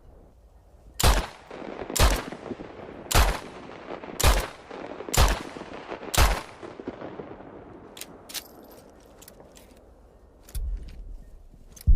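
Spanish revolver fired six times, about one shot a second, each shot followed by a long echoing tail. A few light clicks follow the last shot.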